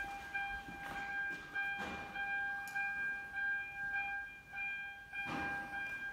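Hyundai Grand Starex 2.5 diesel engine running, with a steady high-pitched whine over it and three brief rushes of noise about one, two and five seconds in. The engine does not pick up revs when the throttle pedal is pressed, and it smokes heavily.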